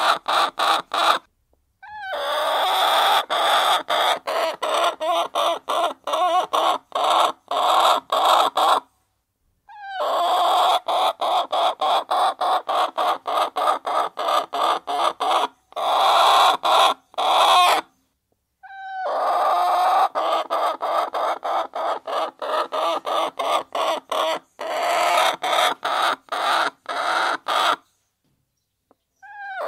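A flock of hens clucking while they peck at feed, with a rapid, irregular run of sharp pecking clicks. The sound cuts out to silence briefly three times.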